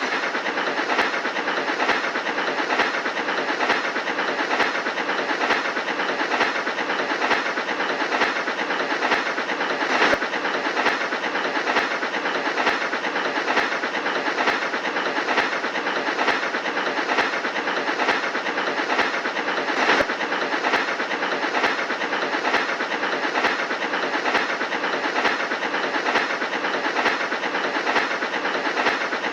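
Steam locomotive heard from the cab while running: a steady hiss and rattle with a regular beat a little faster than once a second.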